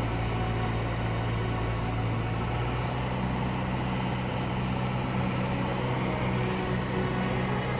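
A light aircraft's piston engine and propeller droning steadily, heard inside the cabin. The engine note changes slightly about three seconds in.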